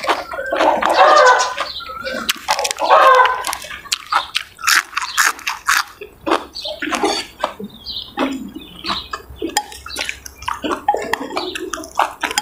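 Close-up mouth sounds of a person eating raw beef koi with fresh vegetables: many short wet clicks and smacks of chewing. Two short voiced sounds come in the first few seconds.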